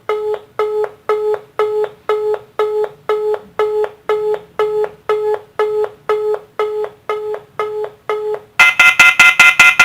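Telephone busy signal: short, sharply repeated beeps on one tone, about three a second. Near the end it switches to a louder, higher-pitched, faster beeping tone, about six pulses a second.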